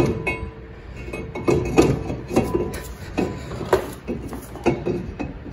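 A string of irregular metallic clinks and scrapes as a Power Stop drilled-and-slotted brake rotor is turned by hand against the wheel hub and lug studs to line up its lug holes.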